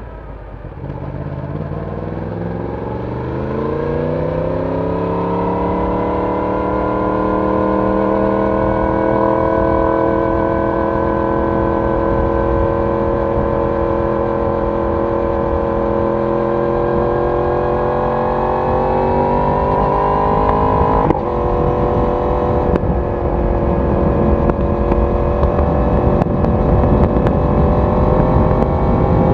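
Yamaha YZF-R1 crossplane inline-four engine and exhaust accelerating, its note climbing over the first few seconds and then holding a steady cruise. The pitch changes abruptly about two-thirds of the way through.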